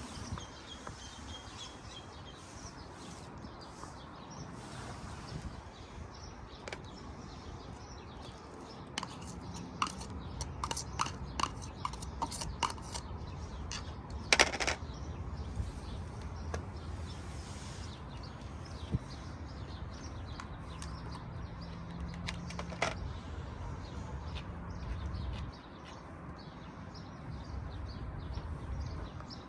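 Outdoor ambience with a faint bird chirp near the start. A quick run of light sharp taps comes about a third of the way in, then a louder single knock about halfway, with a few scattered clicks later.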